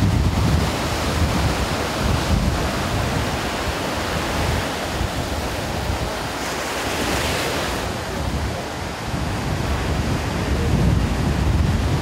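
Ocean surf breaking and washing up a sandy beach, with wind buffeting the microphone in gusts. A louder wave rushes in about seven seconds in.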